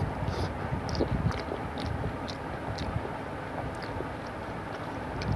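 Eating by hand: scattered soft mouth clicks and smacks of chewing, and fingers mixing rice with curry on a steel plate, over a steady low background rumble.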